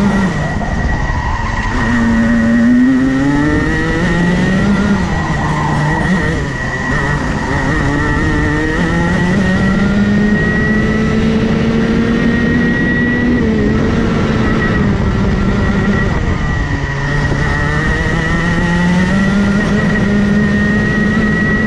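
Racing kart engine heard onboard at speed, its pitch climbing under acceleration and dropping away for corners several times over, with a steady high whine and wind rush underneath.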